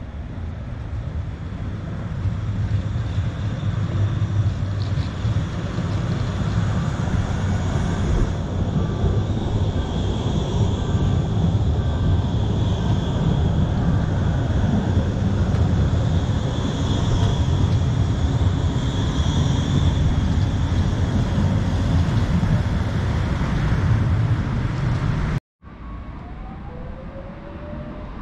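Tram rolling past close by: a steady rumble of wheels on rails with a faint high whine, building over the first few seconds. The sound cuts out abruptly near the end and comes back quieter.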